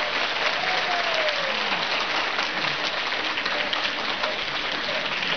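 Audience applauding, a steady dense clapping with a few voices calling out over it.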